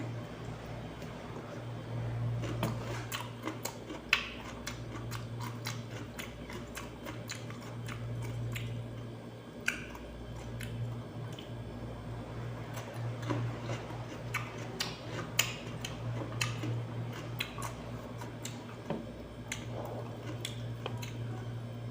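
Chewing raw cucumber: irregular crisp crunches and wet mouth clicks, over a steady low hum.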